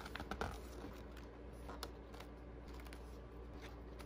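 Pages of a spiral-bound paper calendar being flipped over: faint paper rustles and light ticks, a few at a time.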